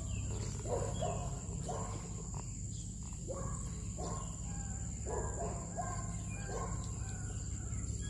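Short animal calls repeated every half second to a second or so, over a steady high-pitched insect drone and a low outdoor rumble.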